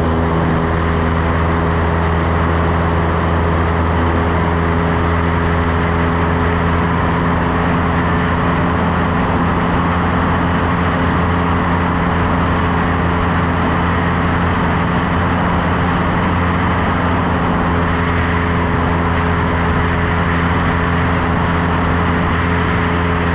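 Piper Super Cub's four-cylinder Lycoming O-320 engine and propeller running steadily at a constant pitch, a loud even drone.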